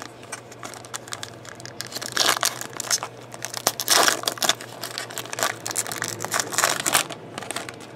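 Foil trading-card pack and its clear plastic inner sleeve being torn open and crinkled by hand: a busy run of crackling and tearing that swells loudest about two, four and six and a half seconds in, then stops shortly before the end.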